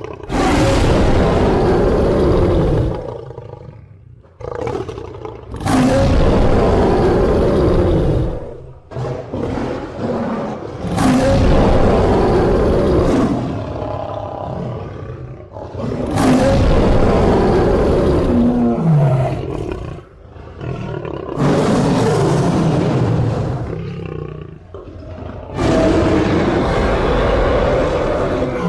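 Lion roaring: six loud, deep roars about five seconds apart, each holding for two to three seconds before fading away.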